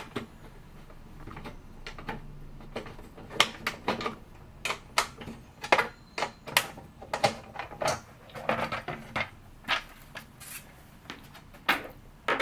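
Irregular light clicks and knocks of hand tools and loose metal parts being handled on a mini band saw, with no motor running.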